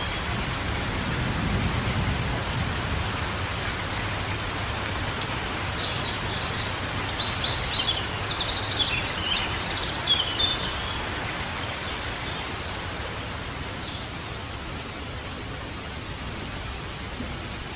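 Steady light rain with birds chirping and singing over it. The birdsong is busiest in the first two-thirds and dies away near the end, leaving only the rain.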